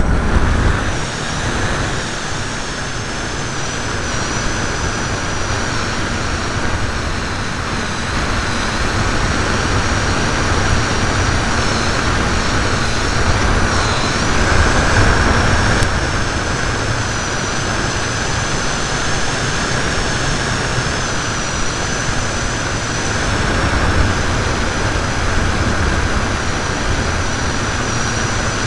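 Onboard sound of a ParkZone T-28 radio-controlled plane in flight: loud wind rush and rumble over the strapped-on camera, with a thin, slightly wavering high whine from the electric motor and propeller.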